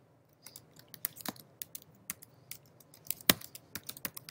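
Typing on a computer keyboard: a run of quick, irregular key clicks as a short name is typed into a text field, with one louder keystroke a little past three seconds in.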